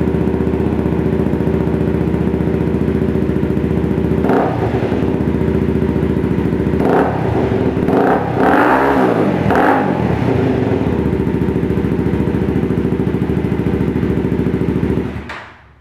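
Honda CBR250R's single-cylinder engine idling through a carbon Musarri exhaust with the silencer insert removed. It is revved briefly several times in the middle, one rev held a little longer, then switched off near the end.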